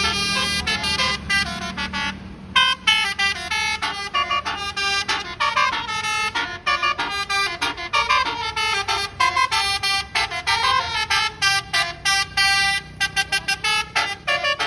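Bus 'telolet' musical air horn with many trumpets (Basuri type) playing a fast melody of short stepped notes, phrase after phrase with brief breaks, the notes coming in rapid runs near the end.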